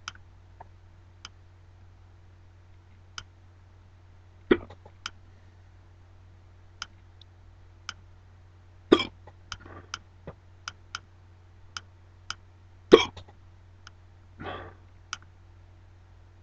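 A person hiccupping three times, about four seconds apart, with a soft breath after the later hiccups. Small sharp clicks come in between, over a steady low hum.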